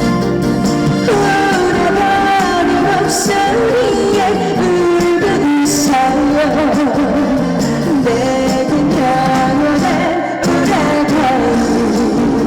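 A woman singing a trot song live over instrumental accompaniment, amplified through a PA system.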